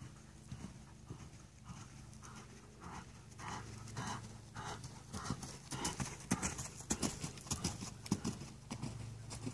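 Horse's hoofbeats on sand arena footing at a canter, a steady rhythm of dull thuds that grows louder as the horse comes close, loudest about six to eight seconds in.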